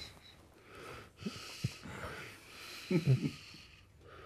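A person breathing audibly in several long breaths, with a brief low voice sound about three seconds in.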